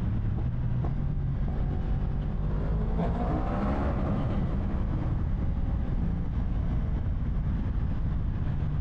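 Wind rushing over a motorcycle helmet at riding speed, with the Yamaha R1's inline-four engine running steadily underneath. A higher whine swells briefly about three to four seconds in.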